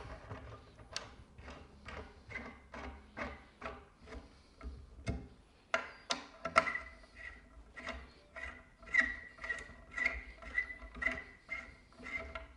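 A hex driver tightening the tail-wing bolts of a windsurf foil by hand: a run of small irregular clicks and ticks, a few a second, as the tool turns in the bolt heads and is regripped.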